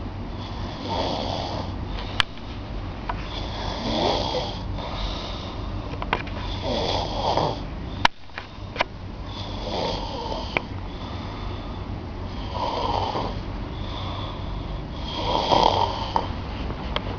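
A person snoring, about six long snores roughly every three seconds, with two sharp clicks in between.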